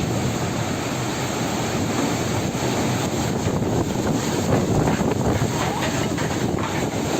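Loud, steady storm noise: a dense rush of strong wind on the microphone.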